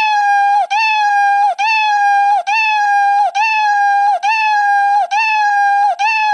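Scratch's built-in Meow sound effect playing over and over in a loop, one short cartoon cat meow after another, a little under one a second.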